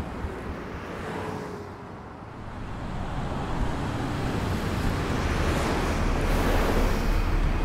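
Road traffic with a double-decker bus approaching and passing: a low engine rumble and tyre noise grow steadily louder through the second half, peaking near the end.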